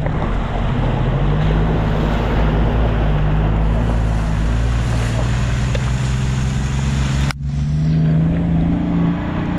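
Four-wheel-drive vehicle's engine running as it drives, under a steady broad rushing noise. About seven seconds in the sound breaks off abruptly for a moment and comes back with the engine note higher and climbing.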